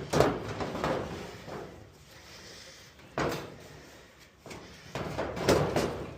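Clunks and rattles of dryer parts being handled while the drive belt is worked off the motor pulley. There are knocks about a quarter second in, about three seconds in, and several close together near the end.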